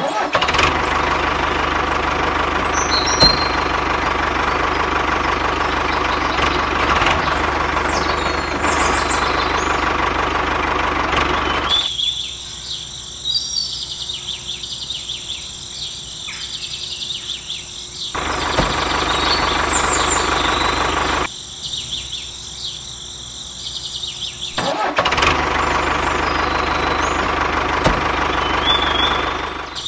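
Toy tractor running with a steady engine sound in three stretches: it stops about twelve seconds in, comes back for a few seconds, stops again, and runs again near the end. Birds chirp in the gaps.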